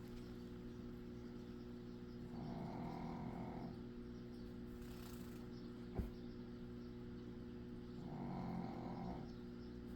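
Dog snoring: two long snores about five and a half seconds apart, over a steady background hum, with a single sharp click between them.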